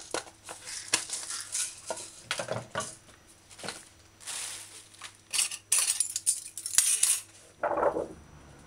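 Metal measuring spoons and spice jars clinking and knocking against a hard countertop as they are picked up and cleared away, with bursts of rustling in between.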